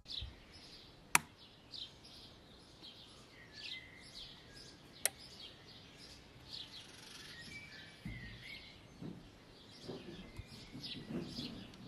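Birds chirping in the background: many short, high calls scattered throughout. There are two sharp clicks, about a second in and again about five seconds in.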